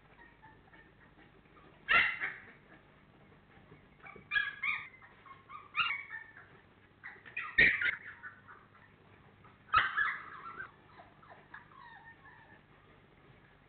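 Four-week-old Labrador Retriever puppies yipping and whining in short bursts, about five times, some bursts opening with a sharp knock.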